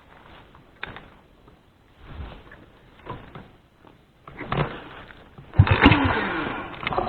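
A few clicks and knocks, then an Alpha moped's small single-cylinder engine being kick-started: it fires about five and a half seconds in and its note falls away as it runs down.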